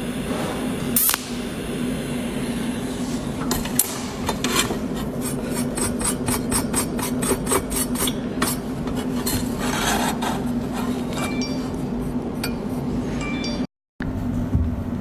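Cold welding machine pulsing as it welds: a run of sharp ticks, about four a second through the middle stretch, over a steady hum. The sound drops out briefly near the end.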